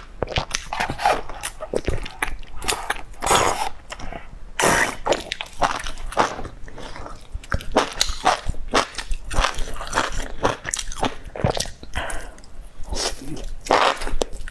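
Close-miked biting and chewing of skewered enoki mushrooms coated in chili flakes: a quick, irregular run of wet crunching clicks.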